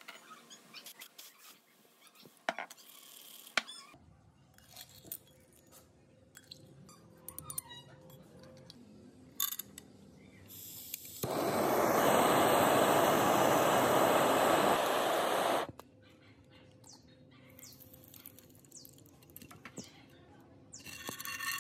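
A long, even spray hiss that holds steady for about four and a half seconds and cuts off sharply, consistent with paint being sprayed on small restored parts. Light clicks and taps from handling come before it, and a second hiss starts right at the end.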